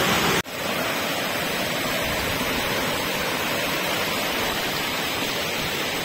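Steady rushing of a waterfall's falling water. It cuts out abruptly about half a second in, then resumes evenly.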